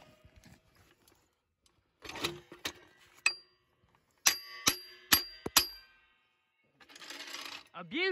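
Steel jack handle striking a hydraulic floor jack: sharp metallic clinks that ring on briefly, three and then four more a second or so later. Near the end a man laughs.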